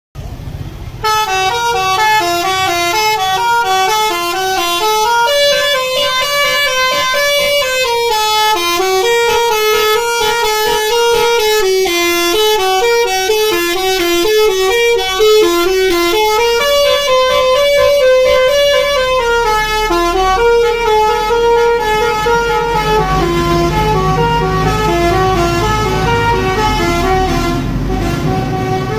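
A telolet basuri musical bus horn plays a long stepped melody of short notes, starting about a second in. A bus engine's low rumble grows under it in the last third.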